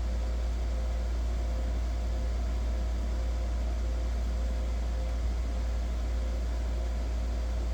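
A steady low hum with faint, constant higher tones over a light hiss, unchanging throughout.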